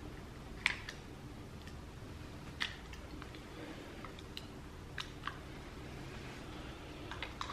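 Faint, scattered plastic clicks of an MC4 solar connector being pushed together and handled on a cable end, about five sharp clicks spread a second or two apart.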